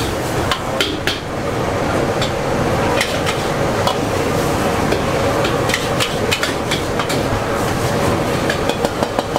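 Metal ladle clanking and scraping against a large steel wok as rice noodles are stir-fried, in irregular bursts of strokes over a steady frying hiss.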